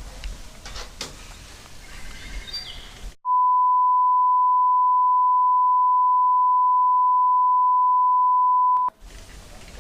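A single steady high beep tone, edited into the soundtrack with all other sound cut out. It starts about three seconds in and lasts about five and a half seconds before cutting off suddenly. Faint outdoor background comes before and after it.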